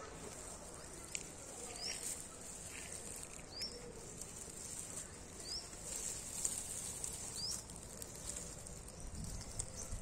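Leaves and stems rustling and crackling as a puppy roots and noses through a bush. A bird's short rising chirp repeats about every two seconds in the background.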